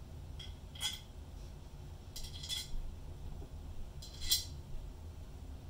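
Small metal screws clinking and tapping as they are picked up and fed through the holes of a microscope stand's base: a few separate light clicks, the loudest about four seconds in.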